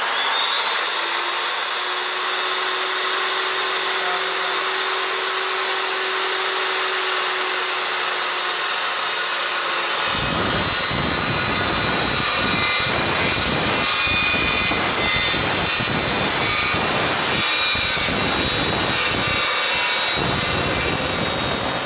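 Evolution S355CPS cold-cut metal chop saw switched on, its high whine rising as the 355 mm steel blade comes up to speed, then running free. About ten seconds in, the blade bites into a 75 mm steel pipe, and a harsh, uneven rasping cut takes over, with the whine dropping slightly under load.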